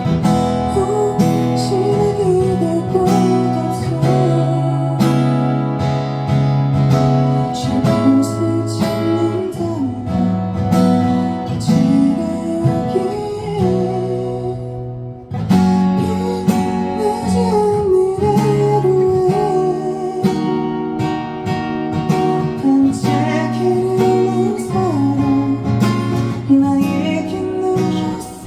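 Band music led by acoustic guitar, strummed and plucked, with a brief drop in level about halfway through.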